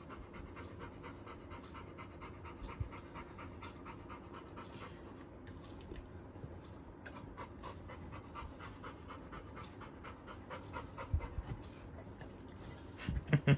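Labrador retriever panting with quick, even breaths, several a second. A few soft knocks near the end.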